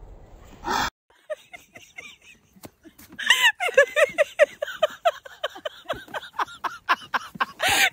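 People laughing hard in quick, repeated, high-pitched bursts, faint at first and loud from about three seconds in. A short burst of noise comes just before the laughter starts.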